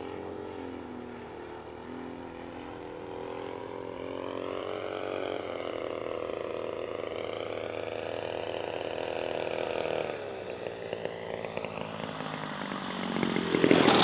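20cc RCGF two-stroke gasoline engine of a radio-controlled model airplane running in flight, its note wavering up and down, then dropping to a lower throttle about ten seconds in for the landing approach. It grows loud near the end as the plane comes in close and lands.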